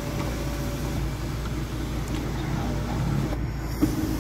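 Steady low hum of a Hyundai Creta running while stationary, heard inside its cabin: engine idling and the climate-control blower. One light click near the end.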